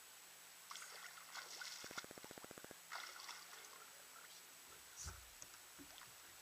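Faint water splashing as a hooked catfish thrashes at the surface beside a small fishing boat, with a fishing reel ticking rapidly for about a second, about two seconds in. A low knock sounds about five seconds in.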